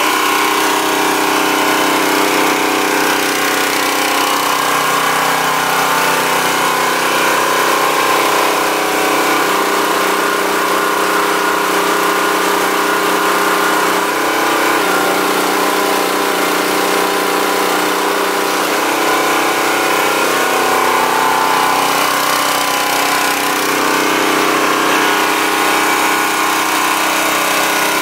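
Predator 212cc, 6.5 hp single-cylinder four-stroke engine running steadily on a log splitter. Its note shifts a few times, about ten, fifteen and nineteen seconds in, as the splitter's hydraulic control handle is worked and the pump takes load.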